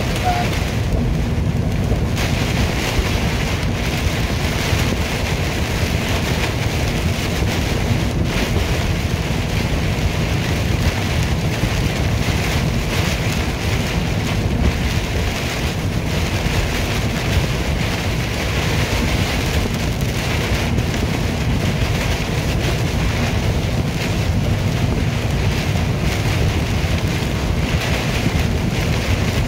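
Steady rushing noise of a vehicle driving at highway speed through a rainstorm, heard inside the cabin: rain on the body and windshield and tyres on wet pavement, with a constant low rumble.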